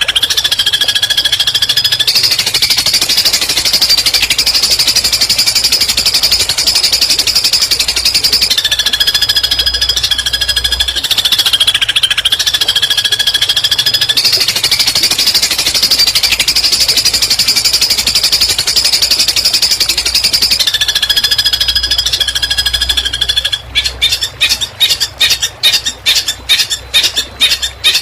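Songbird singing a very fast, machine-gun-like 'tembakan' trill, with steady whistled notes breaking in a few times; near the end it changes to separate sharp chips, about four a second. A masteran recording of shooting-type song used to tutor long-tailed shrikes (cendet).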